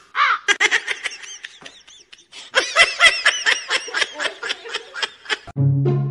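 A person laughing hard in rapid, breathy bursts of 'ha', many a second. About half a second before the end it gives way to music with a low, steady horn-like tone.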